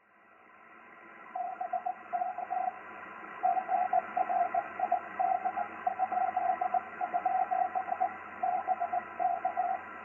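Morse code (CW) received on a 6-metre ham radio by auroral backscatter: a single keyed tone beeping out "BK GRID?? BK" over steady receiver hiss. The tone has the eerie raspiness that aurora propagation gives a CW signal.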